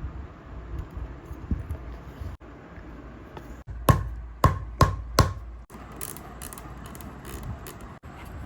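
Four quick hammer taps a little before midway, each with a short metallic ring, over low handling noise from work on a shoe.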